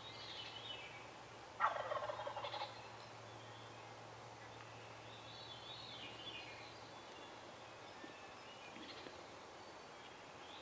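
A wild turkey gobbles once, about a second and a half in: a single rapid, rattling call lasting about a second, the loudest sound here.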